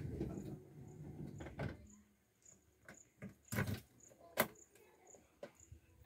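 Front windscreen and cab fittings of a JCB 3DX backhoe loader being handled with the engine off. A low rumble of the glass being moved comes in the first couple of seconds, then a handful of separate clicks and knocks, the loudest a clunk about three and a half seconds in and a sharp click just after four seconds.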